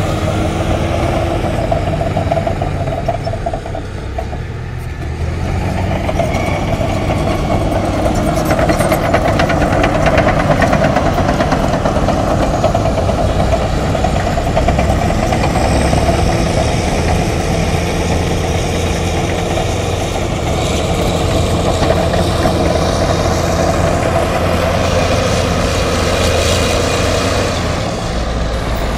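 Heavy diesel construction-machine engine running steadily under load, a sound effect laid over a toy bulldozer being pushed through sand. It dips briefly about four seconds in, then runs on louder.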